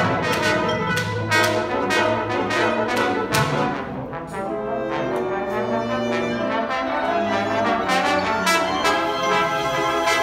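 Solo trombone with a wind band accompanying. Sharp percussion accents land about two or three times a second through the first few seconds, then the band eases into a softer passage of held notes before the accents return near the end.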